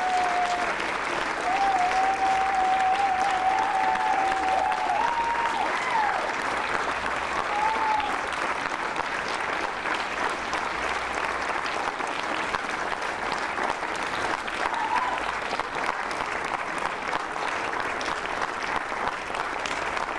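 An audience claps steadily throughout, with someone whistling a held note during the first several seconds.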